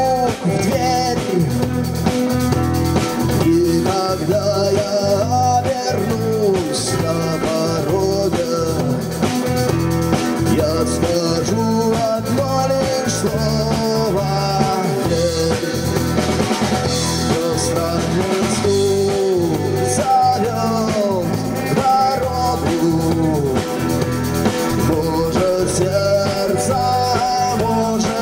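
Live rock band playing without words: electric guitar melody with bending notes over bass and a drum kit keeping a steady beat.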